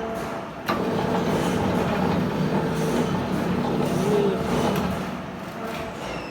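Electric motor of a stone-cutting machine running with a steady hum, starting with a clunk about a second in and dying down near the end.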